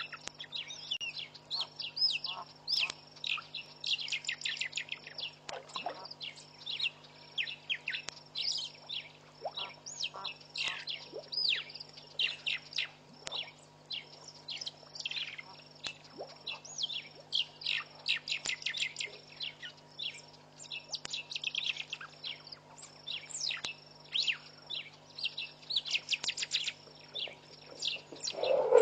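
Many birds chirping and calling together without pause, a dense mix of quick high notes and short falling whistles, over a faint steady low hum.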